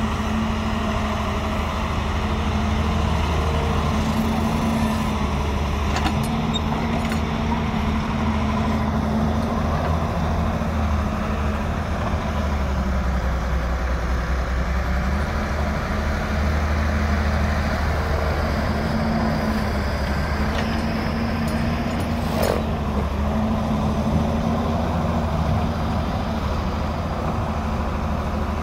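Diesel engines of a Doosan wheeled excavator loading soil into a tractor trolley and of a Massey Ferguson 385 tractor, running steadily, the engine note rising and falling as the excavator digs and swings. Two sharp knocks, about six seconds in and again later on.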